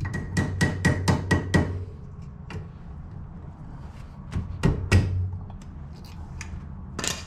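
Metal tapping on an axle hub: a quick run of about seven hammer taps with a ringing note, then scattered clicks and a couple of louder taps near the middle. This is the cotter pin being worked out of the castle nut on the rear CV axle.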